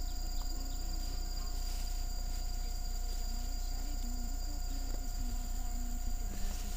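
Insects, crickets among them, keeping up several steady high-pitched trills over a low rumble.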